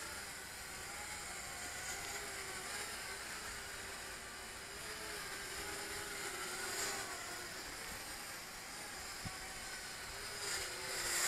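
JJRC H37 Elfie pocket quadcopter's motors and propellers whirring in flight, the pitch wavering up and down as the throttle changes, over a steady hiss.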